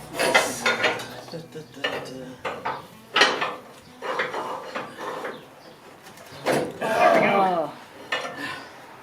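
Metal tools and suspension hardware clinking and knocking: a string of separate knocks roughly a second apart, with a brief sound of gliding pitch about seven seconds in.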